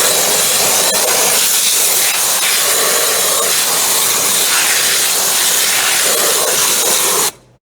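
ST555 wet sandblaster on a 200-bar pressure washer spraying, a loud steady hiss of the water-and-sand jet that cuts off abruptly near the end.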